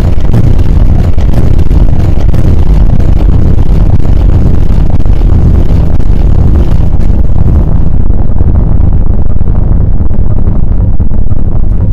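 Many overlapping layers of scrapyard machinery: a diesel loader and hydraulic gear working while a car body is crushed, blended into one dense, loud rumble shot through with clanks and knocks. The higher clatter thins out about eight seconds in.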